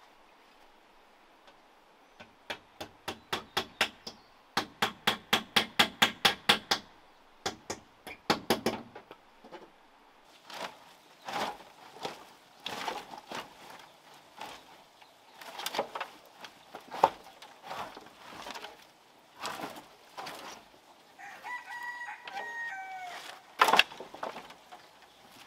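Rapid, evenly spaced hammer blows on wood, then dry branches clattering and cracking as they are pulled from a pile. A rooster crows once, about three-quarters of the way through.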